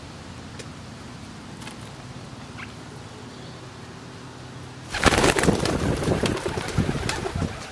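Rock pigeons feeding on seed, with soft low cooing and a few faint pecking clicks. About five seconds in, the whole flock takes off at once: a loud flurry of wing flapping lasting a couple of seconds.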